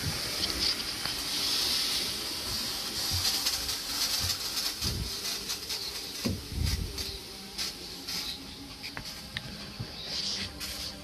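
Steady hiss of steam from a steam launch's engine and boiler, with a few dull knocks around the middle.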